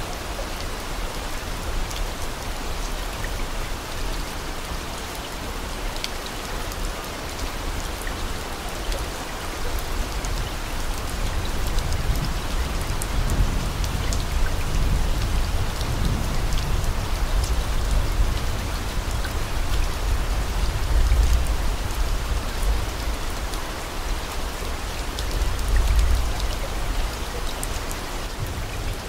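Steady rain: an even hiss of falling water with scattered small drop ticks, and a low rumble that swells around the middle and again near the end.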